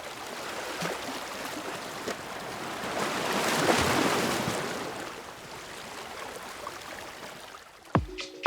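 Rushing water, an even hiss that swells to a peak about four seconds in and then fades. A dance-music beat with a kick drum starts near the end.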